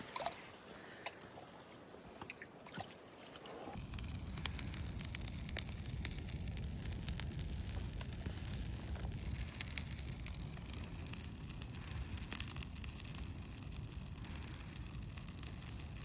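Faint water dripping and trickling, with scattered small clicks. A steady low rumble sets in about four seconds in and stays.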